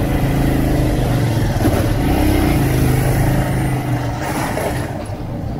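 Motor vehicle engine running with a steady hum over road and traffic noise, fading about four seconds in.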